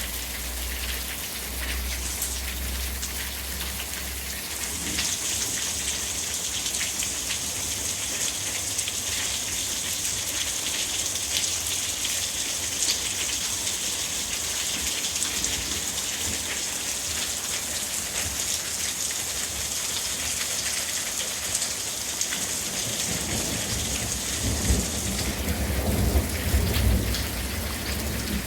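Hail and rain pelting down in a dense, steady patter of small hits. A low rumble swells near the end.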